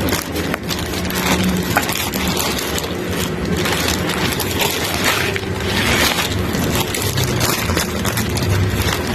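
Crackling, crinkling and scraping of packaging being handled and opened, with many small sharp clicks over a low steady hum.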